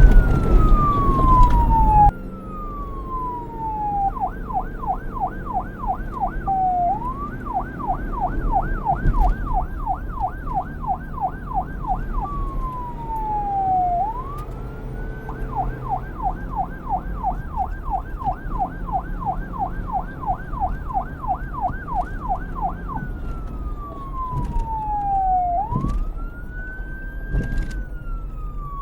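Police car siren cycling between wail and yelp: slow rising and falling wails alternate with stretches of fast yelping at about four sweeps a second. A loud low rumble under the first two seconds cuts off suddenly, leaving a fainter low rumble beneath the siren.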